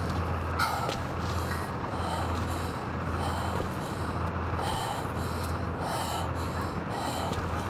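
A frightened man breathing heavily and fast, a harsh breath about every three-quarters of a second, over a steady low hum.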